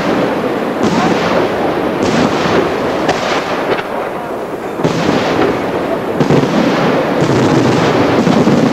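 Aerial firework shells bursting overhead in a dense barrage, sharp bangs about once a second over a continuous wash of noise with no gaps, easing briefly about four seconds in before building again.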